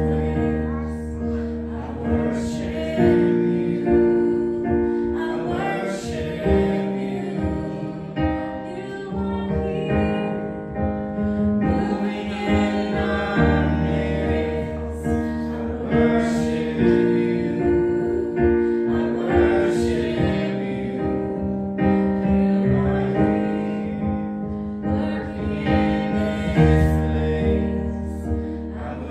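Slow worship music led by piano or keyboard, with held chords over a steady bass and occasional sharp cymbal-like strokes.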